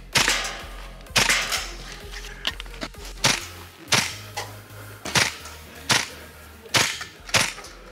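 Tokyo Marui MTR gas blowback airsoft rifle firing single shots, about a dozen sharp cracks at uneven intervals as the shooter moves between targets. Background music with a low bass line plays underneath.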